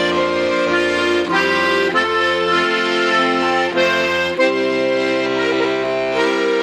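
Background accordion music: a tune in held chords that change about every second.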